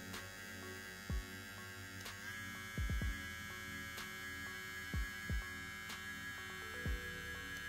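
Kemei KM658 cordless hair trimmer running with a steady motor hum. About two seconds in it is switched to a faster speed setting and the pitch steps up slightly. A few deep thumps sound over it.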